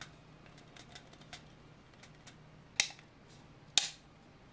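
Hands handling a 3D-printed plastic koozie: light scattered plastic clicks as its counting ring is turned, with two sharper knocks about three and four seconds in.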